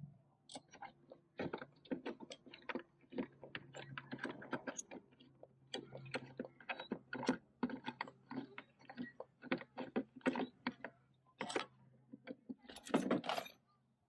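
Turnbuckles and a steel securing chain clicking and rattling as the turnbuckles holding the outboard trolley are turned and loosened: a quick, uneven run of small metallic clinks, with a louder clatter of chain and hardware near the end.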